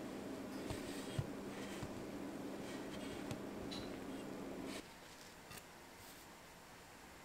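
A metal muffin tin handled with oven gloves, giving a couple of light knocks over a steady hum. The hum cuts off suddenly near five seconds in, leaving faint rustling of a paper towel being smoothed onto a plate.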